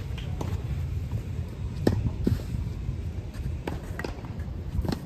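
Tennis rally on a clay court: a series of short, sharp pops from racket strikes and ball bounces, about six in five seconds, the loudest nearly two seconds in. A steady low rumble runs underneath.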